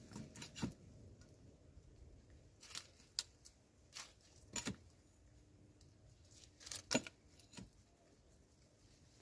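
Irregularly spaced sharp clicks and light knocks, about eight of them, the loudest a pair about seven seconds in, over a faint quiet background.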